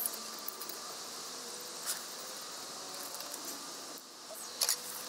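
A small brass Optimus 123R Svea gasoline stove being handled, with light clicks, then two sharp knocks about four and a half seconds in as it is set down on a wooden table. A steady high hiss runs underneath.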